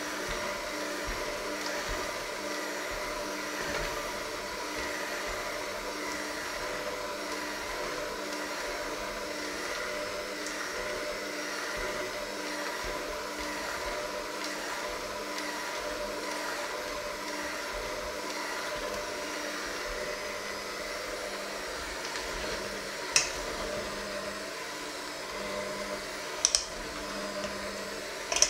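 Electric hand mixer running steadily, its beaters working a thick mixture in a stainless steel bowl. A few sharp clicks come in the last few seconds.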